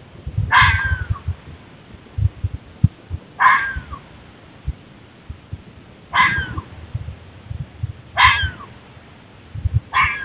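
Red fox barking: five short, hoarse, downward-sweeping barks about two to two and a half seconds apart. Irregular low thumps run underneath.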